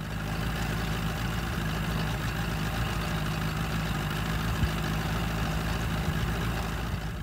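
Mercury outboard motor running at a steady speed, pushing the boat along: an even, low engine hum over the rush of water from the wake.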